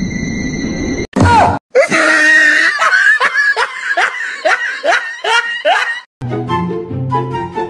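An edited sound track of comedy sound effects: a steady high electronic tone, a sudden loud cry, then a quick run of rising-and-falling cries at about three a second. Background music with held notes comes in about six seconds in.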